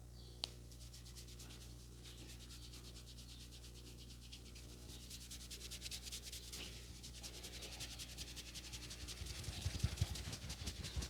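A barber's hands rubbing over hair and skin in a head massage: a dry, rapid rustle that grows louder from about halfway through. There is one sharp click about half a second in and a few dull low thumps near the end.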